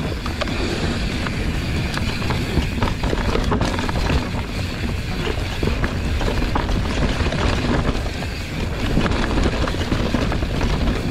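Mountain bike ridden along a trail: tyres running over the dirt, with the chain and frame rattling in scattered clicks, and wind rumbling on the microphone.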